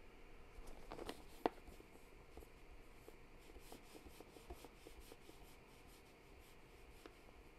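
Faint brush rubbing and scratching on wet watercolour paper as paint is lifted, with a few small clicks about a second in, one sharper than the rest.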